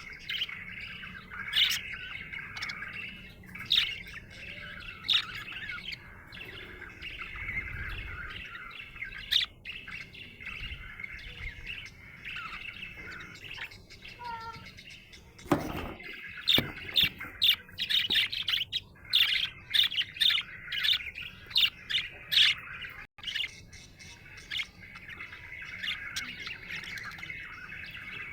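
Budgerigar chirping and warbling without pause, with a run of louder, sharper chirps in the second half and one brief dull noise about halfway through.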